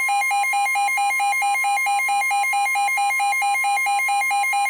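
Weather-radio emergency alert alarm for a severe thunderstorm warning: a harsh electronic tone flipping rapidly and evenly between a low and a high pitch, several times a second, over a fainter steady tone near 1 kHz.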